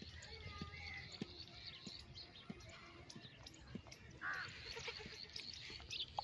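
A baby goat bleats once, about four seconds in, among scattered light knocks.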